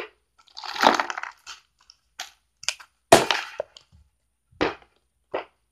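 Hand-handling noises: a rustle about a second in, then a sharp knock just after three seconds and a few smaller taps and knocks.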